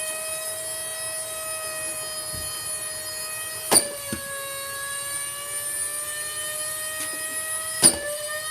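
Shark Rotator vacuum cleaner's motor running with a steady high whine while it is being run to burn it out. Two sharp bangs, about four seconds apart, are the loudest sounds, and the whine dips briefly in pitch after each.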